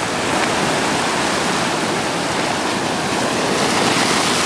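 Ocean surf washing and foaming over a rocky shoreline: a steady rush of water.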